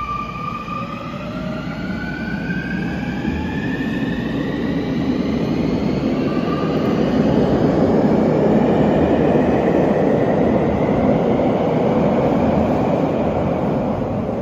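Sotetsu 21000 series electric train accelerating away from a subway platform. Its inverter motor whine holds a steady note, then rises in pitch as the train gathers speed, while wheel and running noise builds and drowns the whine out in the second half.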